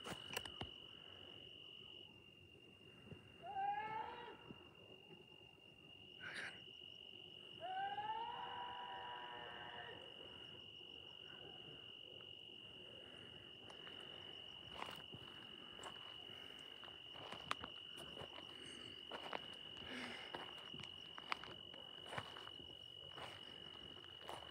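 Night insects, cricket-like, trilling steadily on one high note. Two faint, distant pitched calls come over it, a short one about four seconds in and a longer, falling one about eight seconds in, along with occasional light clicks.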